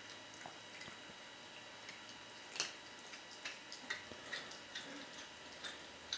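Cat chewing a raw chicken head: faint, wet, irregular clicks and crunches of the teeth working on it, the loudest about two and a half seconds in.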